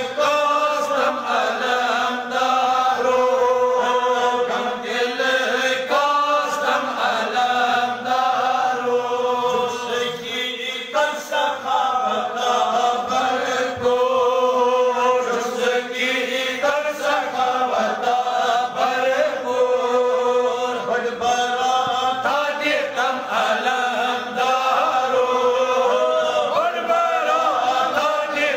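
Sufi devotional chanting: a voice sings long, wavering melodic lines without a break.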